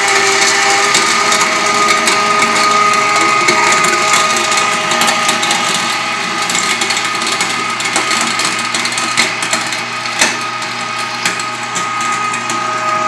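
Weston No. 32 electric meat grinder running steadily as it grinds raw turkey, a motor whine with a few sharp cracks near the end.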